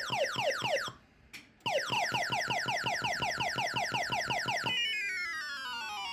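Arcade machine electronic sound effect: a rapid run of falling electronic beeps, about seven a second, that breaks off for half a second about a second in and then resumes. Near the end it changes to slower, stepped falling tones.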